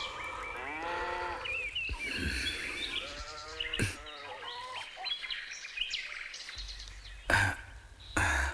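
A bleating farm animal calls with a wavering voice about a second in and again briefly a little later, while small birds chirp. Two sharp thumps come near the end, the first the loudest sound.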